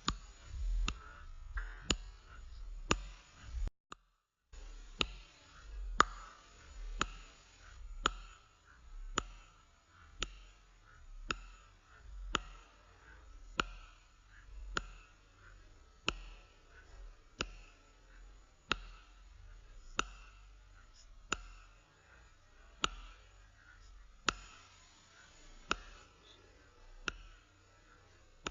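A sharp click repeating roughly once a second, the gaps slowly lengthening, each click with a soft low rumble swelling around it; the sound cuts out completely for a moment about four seconds in.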